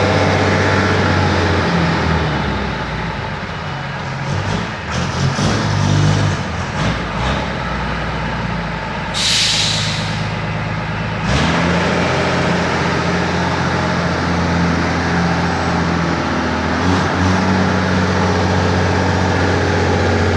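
Toyota Hilux engine idling steadily, with a stretch of irregular knocks in the middle and a short hiss about nine seconds in.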